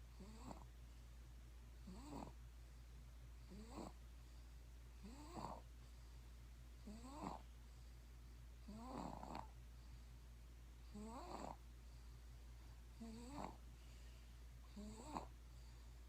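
Faint, even snoring: nine short snores, one about every two seconds.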